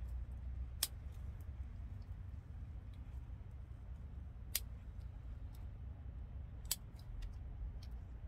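Three sharp snips of scissors cutting dried leaves and stems off a Dioscorea elephantipes vine, spaced a few seconds apart, with a few faint ticks between them over a steady low hum.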